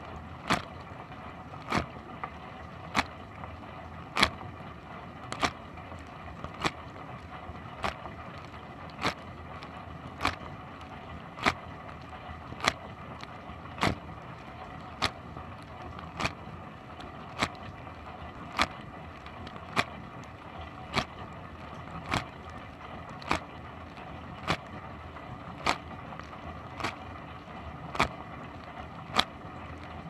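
A dishwasher running mid-wash, heard from inside the tub: a steady rush of pump and water spray, with a sharp slap of water hitting about every 1.2 s as the rotating spray arm's jet sweeps past.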